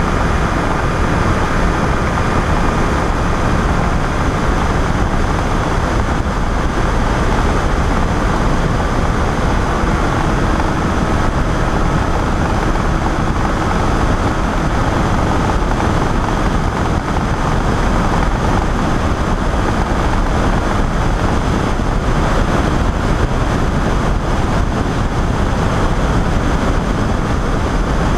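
The engine and pusher propeller of a Pegasus flex-wing microlight trike running steadily in level cruise, heard from a wing-mounted camera with wind rushing over the microphone.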